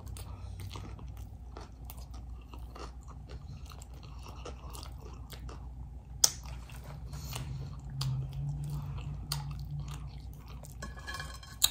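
Close-miked chewing and crunching of a chili cheese hot dog topped with crunchy chips: a steady run of small crunches, with one sharper crunch about six seconds in.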